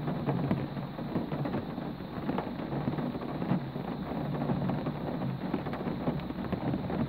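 Steady rain: a dense, even patter of drops with a low rumble underneath.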